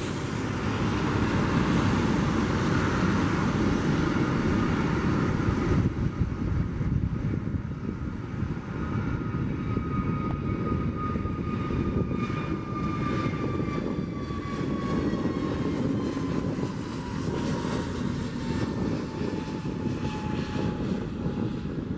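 Boeing 757-200's jet engines running as it taxis: a steady low rumble under a thin whine that slowly falls in pitch through the second half.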